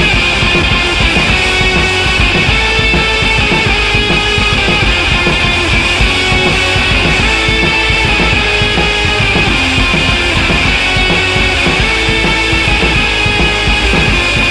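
Rock music with guitar and drums, loud and continuous.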